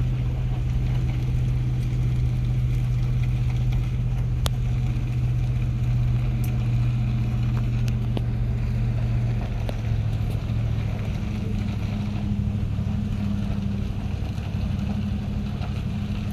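GP-35 diesel-electric locomotive idling, a steady deep hum whose pitch shifts slightly about ten seconds in.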